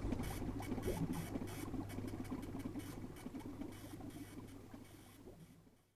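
Quiet room tone with a steady low hum and faint scratchy rustling, fading out and cutting to silence near the end.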